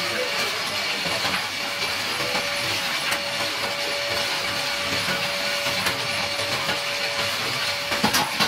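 Small motorized rotary slitting machine running with a steady whine while thin sheet metal is fed between its circular cutters and sliced into strips, with a continuous hiss. A few sharp metallic clatters near the end as the sheet is handled.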